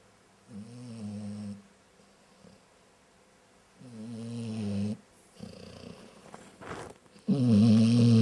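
Labrador retriever snoring: three droning snores about three and a half seconds apart, the last the loudest.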